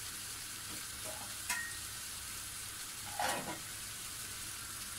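Chicken pieces frying with grated coconut and spices in a frying pan, a steady faint sizzle. A wooden spatula knocks against the pan once about one and a half seconds in, and scrapes through the pan briefly a little after three seconds.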